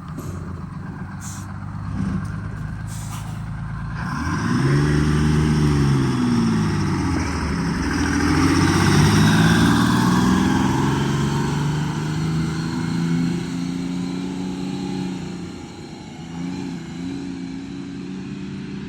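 Detroit Diesel 6-71 two-stroke inline-six running in a bus, idling at first with a couple of short air-brake hisses. From about four seconds in it pulls away, its note climbing, dropping and climbing again through the gear changes. The engine is down on power, with weak, low-compression cylinders.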